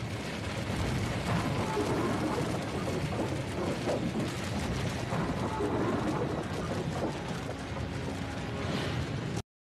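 Sound-effect rumble and crash of a large building collapsing, with debris pouring down; it cuts off suddenly near the end.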